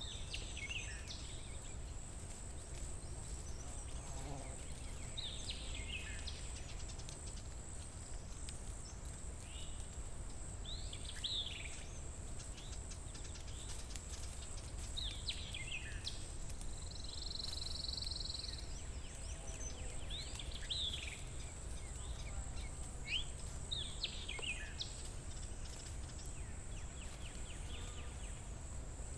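Forest ambience: birds give short calls that fall in pitch every few seconds, over a steady high insect hum and a low background rumble.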